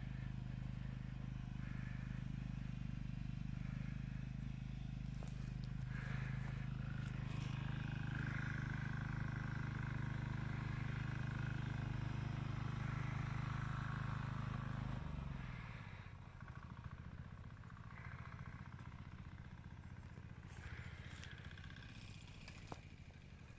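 A patpat two-wheel tractor's single-cylinder engine running steadily, then slowing with a falling pitch and stopping about fifteen seconds in.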